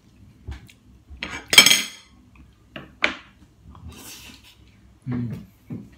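A metal spoon clinking and scraping against ceramic dishes: a loud clatter about a second and a half in, then a few lighter knocks and taps.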